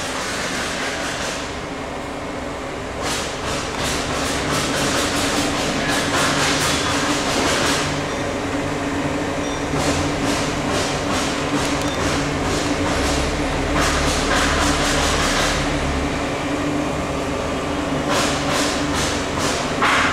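Running PSA nitrogen generator plant: the 55 kW Kaeser air compressors give a loud, steady drone with a constant hum, overlaid with rattling and several swells of rushing air.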